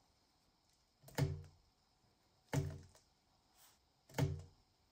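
Homemade foam stamp, foam rectangles glued on card, pressed down onto a paper bag on a cutting mat: three soft thumps about a second and a half apart.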